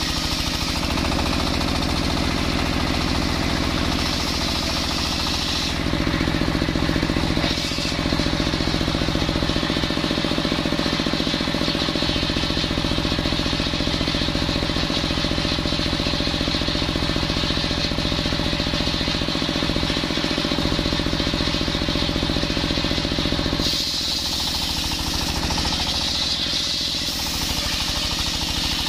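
Engine-driven circular sawmill running steadily, its large blade sawing a coconut log. A hissing rasp of the cut rides over the engine drone at the start and again from about five seconds before the end; in between the blade spins free and the engine's steady drone stands out.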